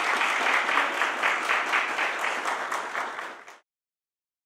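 Audience applauding, a dense patter of many hands clapping that cuts off abruptly near the end.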